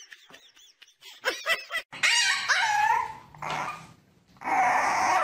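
A puppy whining and yelping in a run of short pitched cries that rise and fall, louder near the end, after fainter high squeaks in the first couple of seconds.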